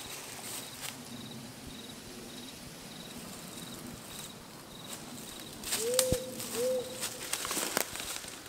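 Forest ambience: a faint, regular high chirp about twice a second from an insect or small bird. About six seconds in, two short low hooting notes sound, and footsteps and horse hooves rustle through dry leaf litter, more so toward the end.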